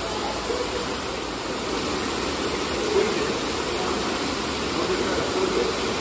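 Steady rush of falling and splashing water from splash-pad fountains and a water-play table pouring into its basins.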